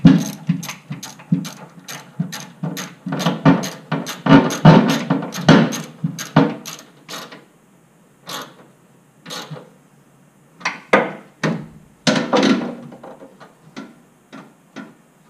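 Ratchet clicking in short back-and-forth strokes as a hose clamp is tightened, about three clicks a second for the first seven seconds, then slower, scattered clicks.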